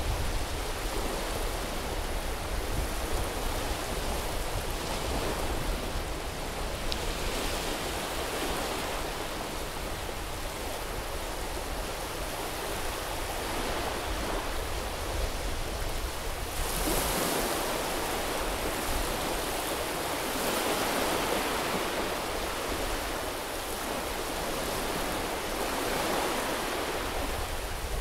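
Sea waves washing onto a beach: a steady hiss of surf that swells several times as waves break and run up the shore.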